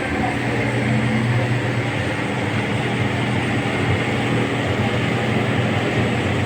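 Pellet-fired steam boiler plant running: a steady low mechanical hum with an even rushing noise over it.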